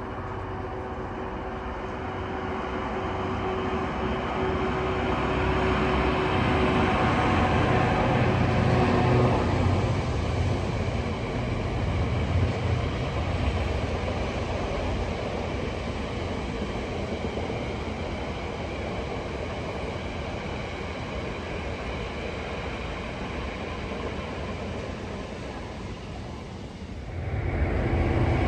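A diesel locomotive running past, its engine hum building to a peak about a third of the way in and then slowly fading as it moves away. Near the end the sound switches abruptly to another, louder train running.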